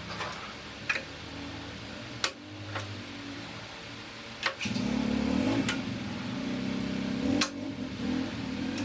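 Wasino 550 lathe being shifted through its headstock gear changes: the speed levers and sliding gears clunk into place in several sharp clicks over a steady machine hum, which steps up louder a little past halfway.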